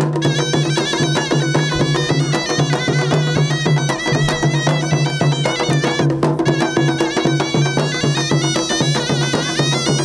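Traditional folk band of zurna-type reed pipes and a large double-headed drum playing: a shrill, wavering reed melody over a steady low held note, with the drum beating continuously.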